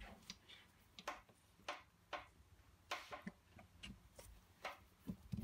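Faint, irregular light clicks and taps, about a dozen, over near silence.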